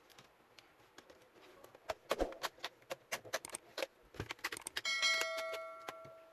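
Metal keys jangling and clicking for about three seconds. Near the end comes a bell-like ding, the subscribe-button notification sound effect, ringing out for about a second.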